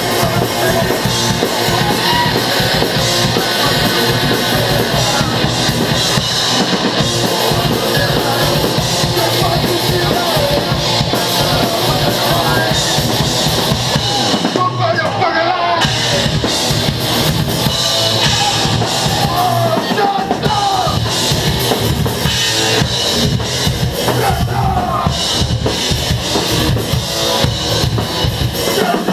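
Heavy metal band playing live, loud and unbroken, with the drum kit's bass drum and cymbals prominent.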